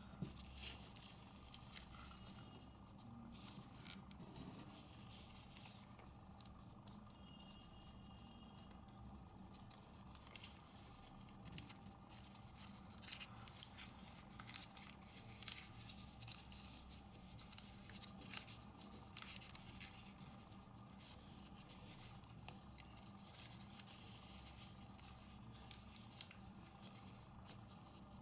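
Origami paper rustling and crinkling under the fingers as it is folded and its creases pressed, many small scratchy crackles over a faint steady hum.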